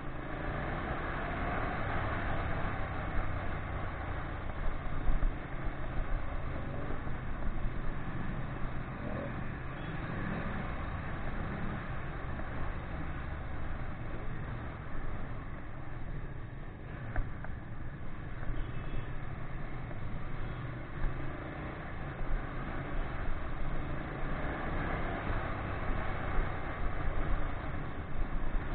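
Ducati 959 Panigale's twin-cylinder engine running steadily at road speed, heard from a camera on the bike, with a dense rush of wind noise over it.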